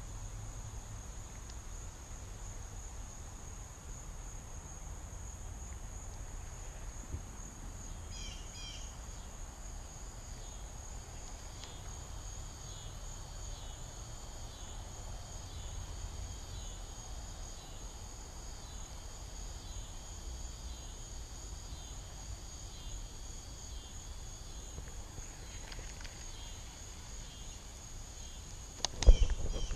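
Insect chorus at a summer pond: a steady high trill, joined about eight seconds in by a second insect's rapid pulsing call. Near the end comes a short loud knock.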